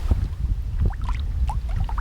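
Kayak being paddled: water swishing and dripping off the paddle, over a steady low rumble.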